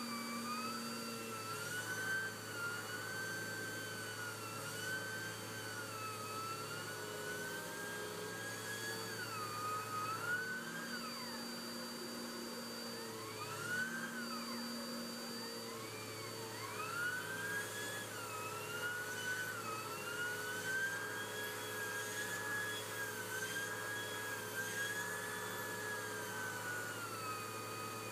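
Bagless upright vacuum cleaner running with its hose attachment on carpet, sucking up dried baking soda paste; the motor whine wavers up and down in pitch.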